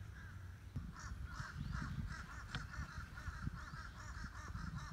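Birds calling, a steady run of short repeated calls, over a low rumble. A single light click comes about halfway through.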